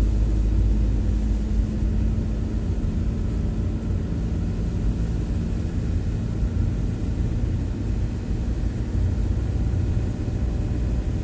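Steady car interior noise while driving: engine and road rumble with tyre hiss from the wet road surface, heard from inside the cabin.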